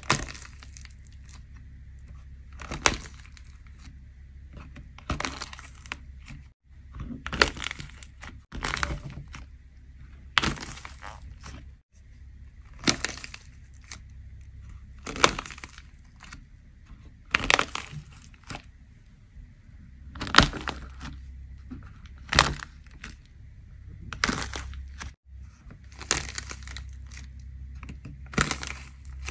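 Dry plaster clay shells being crushed by hand one after another, each dome giving a sharp crack followed by a short crumbling crunch, roughly every two seconds. A steady low hum runs underneath.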